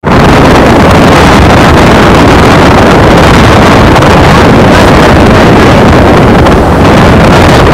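Heavy wind buffeting the microphone of a moving vehicle, a loud, steady rushing roar with a deep rumble beneath, cutting in suddenly at the start.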